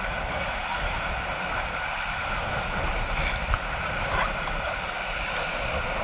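Rushing whitewater of a river around an inflatable raft, with wind buffeting the microphone.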